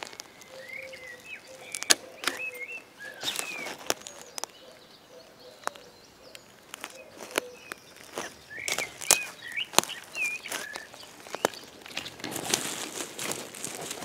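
Small birds chirping in short up-and-down calls, in two spells, over footsteps and sharp cracks of twigs on a dry forest floor. Near the end comes rustling as a hand pushes through dry reindeer lichen and pine needles.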